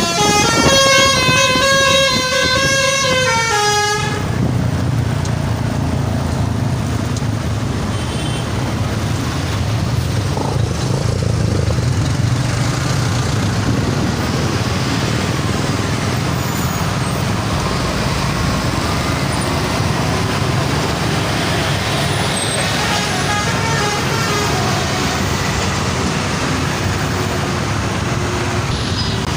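Basuri 'telolet' multi-tone bus air horn playing a stepped melody for about four seconds, then a steady engine and traffic rumble; fainter horn tones play again near the end.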